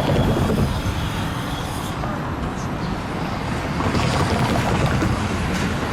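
Steady low rumble of passing vehicles, with no distinct separate events.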